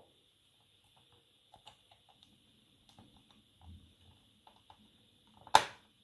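Faint small plastic clicks and taps of LEGO bricks being handled and pressed onto a LEGO baseplate, then one sharp, loud click near the end as a brick snaps into place.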